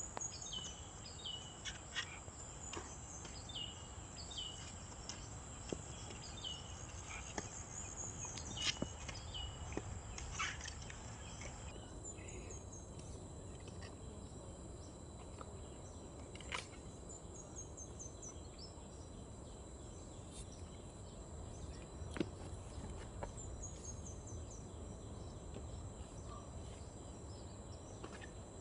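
Outdoor field ambience: a steady high insect drone, with a bird calling in runs of short falling notes through the first dozen seconds and again briefly later. There are a few scattered sharp clicks.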